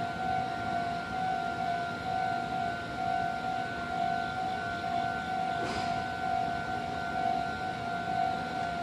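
Japanese level crossing warning alarm ringing, a steady electronic two-tone ding repeating without a break. A short noise cuts across it about two-thirds of the way through.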